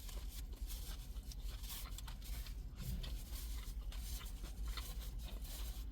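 A person chewing food close to the microphone: a run of irregular crunchy clicks and mouth sounds over a steady low hum.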